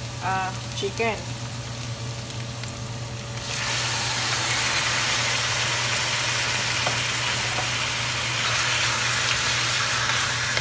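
Hot oil sizzling lightly under sautéing onion and garlic in a stainless steel pan, then jumping suddenly to a loud, steady sizzle about three and a half seconds in as pieces of raw, frozen chicken thigh and drumstick go into the oil. The sizzle swells a little near the end as the chicken is stirred with a wooden spoon.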